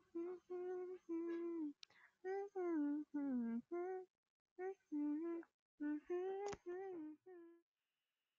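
A woman humming a slow tune without words, one held note after another with short gaps, stopping near the end.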